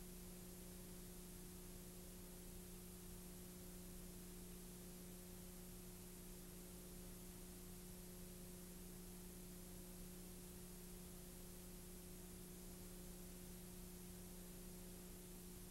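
Near silence: a faint, steady low hum with hiss.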